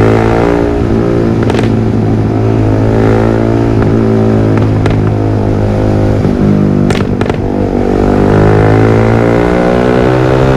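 Yamaha R15 V3's single-cylinder engine running through a Villan MP1 aftermarket exhaust, revs held fairly steady with small dips and a rise near the end. A few sharp pops crack out of the exhaust, one about a second and a half in, one about five seconds in, and two close together about seven seconds in.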